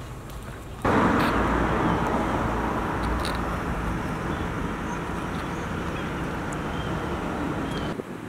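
Rush of road traffic noise. It starts suddenly about a second in and slowly eases off.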